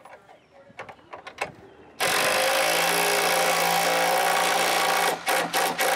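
Cordless DeWalt drill boring through a wooden playset post. The motor runs steadily under load for about three seconds, then in several short bursts near the end.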